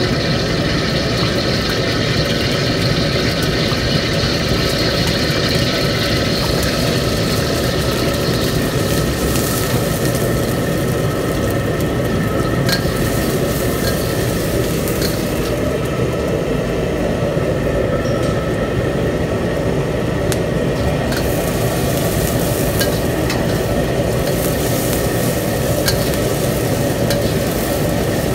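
Chopped onions sizzling in hot oil in a steel wok. The sizzle starts about a third of the way in, and a metal ladle scrapes and clinks against the wok as they are stirred. A steady low roar from the commercial kitchen's gas wok range runs underneath.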